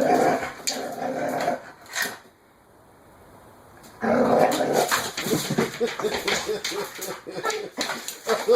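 A dog whining and barking in short pitched calls. It falls quiet for about two seconds, then starts up again around four seconds in with a quick run of short, repeated calls.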